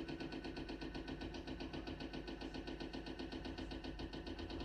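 Hydraulic breaker on a JCB backhoe loader hammering at a brick wall, a rapid, even run of blows over the machine's engine.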